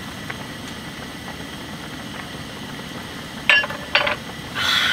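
Two sharp clinks of a utensil against tableware about three and a half and four seconds in, then a brief hissing noise near the end, over a steady low hum.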